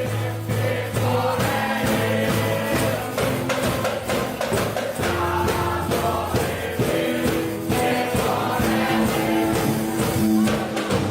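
Background music with a steady beat and what sounds like a choir or sung vocals.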